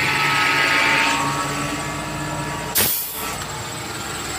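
Tipper truck's diesel engine running steadily while its hydraulic hoist raises the dump body, with a short, sharp hiss of air about three seconds in.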